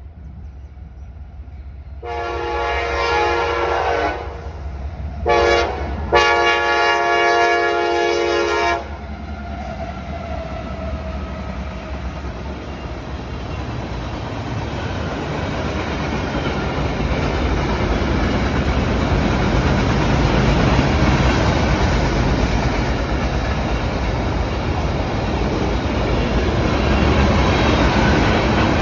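Freight train's diesel locomotive air horn sounding the grade-crossing signal: a long blast, a short one and a final long one ending about nine seconds in. Then the diesel locomotives and freight cars roll past, their steady noise on the rails growing louder.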